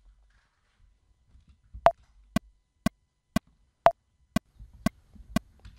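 Pro Tools Click metronome ticking at 120 beats per minute, two clicks a second, starting about two seconds in. Every fourth click is louder and higher, marking the first beat of each bar.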